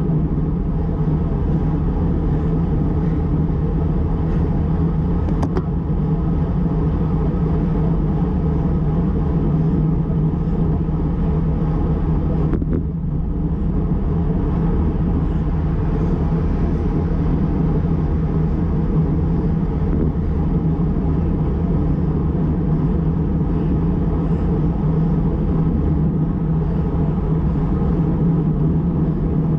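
Steady wind rush and tyre-on-road rumble picked up by a bicycle-mounted action camera riding at about 36 km/h, with a brief dip a little before halfway.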